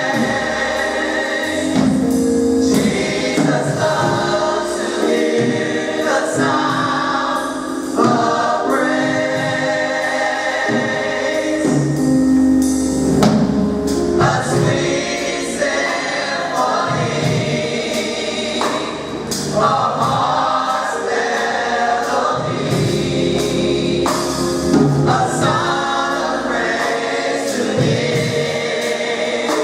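A mass gospel choir singing with instrumental accompaniment, holding long chords that change every few seconds over a bass line.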